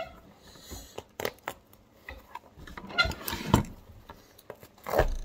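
Chain-stitched leather welt of a Red Wing Iron Ranger boot being ripped off by hand, in a series of short tearing pulls, the strongest about three seconds in and near the end.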